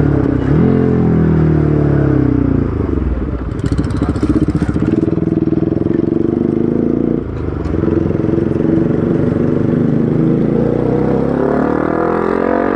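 Bajaj Pulsar RS200's single-cylinder engine through an aftermarket Akrapovic exhaust, under way. The revs rise after a shift, then fall off with crackles from the exhaust on the overrun, hold steady, and drop suddenly about seven seconds in. They climb again steadily near the end as the bike accelerates.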